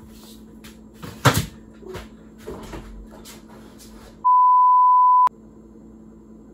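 A sharp knock about a second in, then faint clicks and handling noise over a low steady hum. About four seconds in comes a steady electronic beep lasting about a second, with all other sound cut out beneath it: an edited-in censor bleep.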